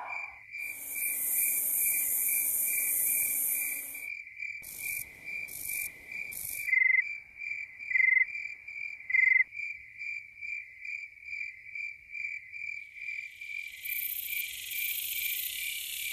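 Crickets chirping at night in an even, pulsing rhythm of about two to three chirps a second. A high hiss overlays the chirping for the first few seconds and again near the end.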